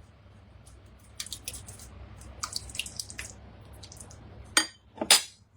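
Thick soup being stirred in a pot: a run of small wet clicks and drips, then two louder clinks of the utensil against the pot near the end.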